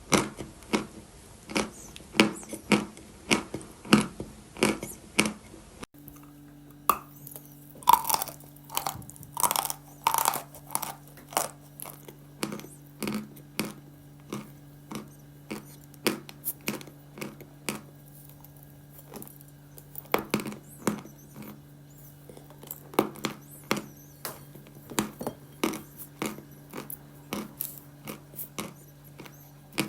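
Close-miked biting and chewing of dry chalk: a quick string of sharp, crisp crunches, thickest around eight to eleven seconds in and again at about twenty seconds. About six seconds in the recording cuts, and a faint steady low hum runs under the crunching from then on.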